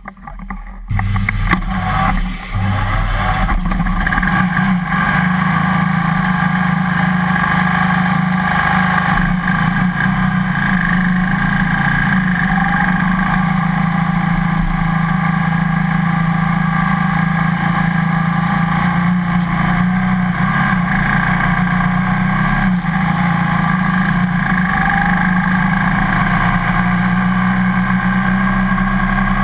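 1987 Ducati TT1 race motorcycle's L-twin engine running at low, steady revs, heard from a camera mounted on the bike. It comes in about a second in and then holds steady.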